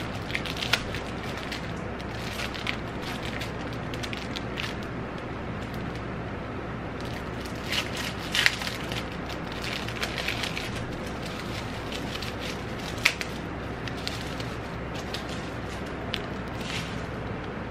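Small clear plastic jewellery bag crinkling and crackling in the hands as a card of earrings is worked out of it, in short scattered clicks and rustles. A steady low hum runs underneath.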